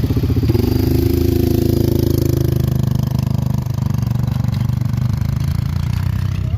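ATV engine running under way, its revs picking up about half a second in and easing back down before the middle.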